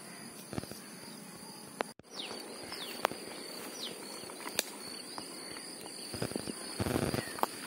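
Steady high insect chirring over the water, with sloshing and splashing of a man wading through waist-deep lake water, loudest near the end.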